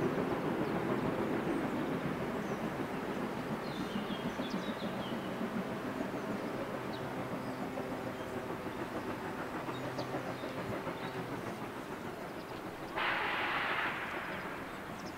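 Class 52 steam locomotive 52 8154-8 and its train running in the distance, a steady rumble that slowly fades as the train moves away. A brief hiss about two seconds before the end.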